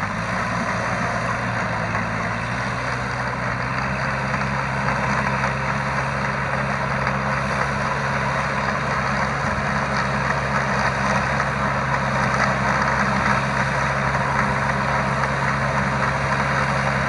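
Farm tractor's diesel engine running steadily under load while tilling a wet rice paddy, getting gradually louder in the second half as the tractor comes closer.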